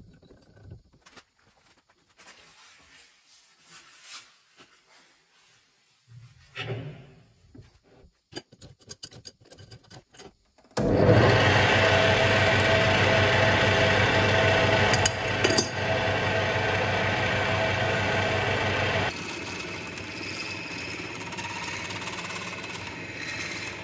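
Quiet handling and small clicks as a 16 mm drill bit is fitted into a metal lathe's tailstock drill chuck. About eleven seconds in, the lathe starts suddenly and the drill bores into the spinning bar stock: a steady, loud running and cutting noise with a held tone, which steps down to a lower level about eight seconds later.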